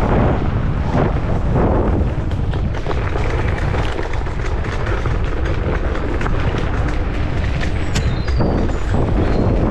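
Wind buffeting the microphone over the rattling and knocking of an MS Energy X10 electric scooter riding down a rough forest dirt track, with a few brief high squeaks near the end.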